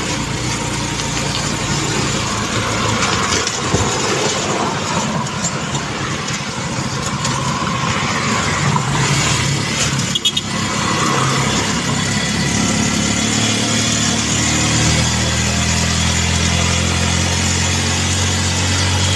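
Engine of a moving road vehicle running under wind and road noise. Its low note rises and gets stronger over the last few seconds.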